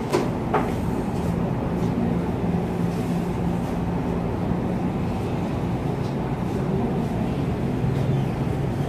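Steady low rumble and hum of roadside traffic and stall machinery, with two sharp clicks about half a second apart near the start.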